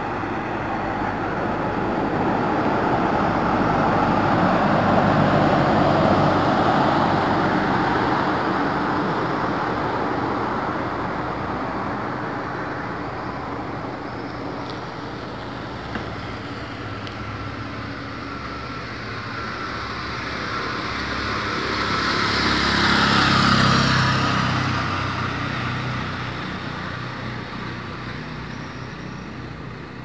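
Passing road traffic on an otherwise quiet street: a vehicle's sound swells and fades about five seconds in, and a second vehicle, with an engine note, swells and fades about twenty-three seconds in.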